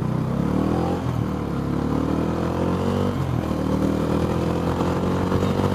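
Bajaj Dominar 400's single-cylinder engine accelerating: its pitch climbs steadily, dips with an upshift about a second in and another about three seconds in, then climbs again.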